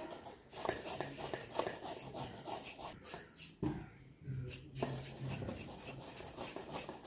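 Carrots being grated on a hand grater: repeated rasping strokes at about two to three a second, with a short pause about halfway through.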